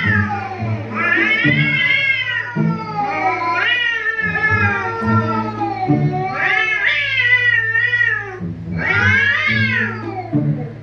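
Recorded cats meowing, played back from a cat-meowing video: about six long, drawn-out meows in quick succession, each rising and falling in pitch, over a steady low hum. The meowing stops near the end.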